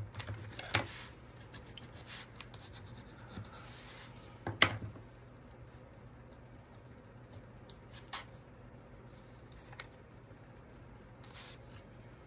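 Paper being handled and scratched at its edge with a small hooked craft tool: soft rubbing and scraping with a few light ticks. There is one sharper knock about four and a half seconds in.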